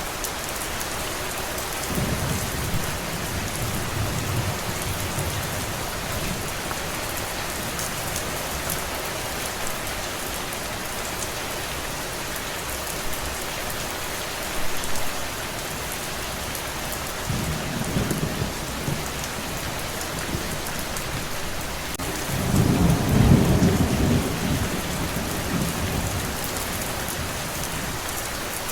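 Steady heavy rain falling, with low rolls of thunder: one about two seconds in, a shorter one around eighteen seconds, and the loudest rumble a little past twenty-two seconds, fading over a few seconds.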